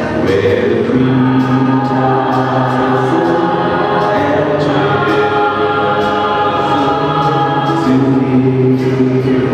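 Mixed church choir singing a Christmas carol in harmony, holding long sustained notes that move to new chords every second or two.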